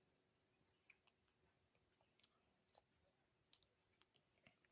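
Near silence with about a dozen faint, scattered short clicks.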